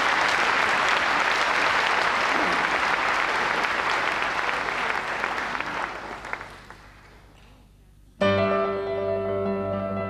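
Audience applauding, the clapping dying away after about six seconds. Then, a little after eight seconds in, a piano comes in suddenly with a ringing chord, opening the introduction of a song.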